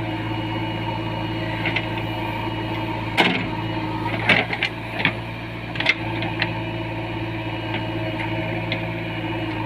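JCB 3DX backhoe loader's diesel engine running steadily, with a handful of sharp knocks from the working machine between about three and six seconds in.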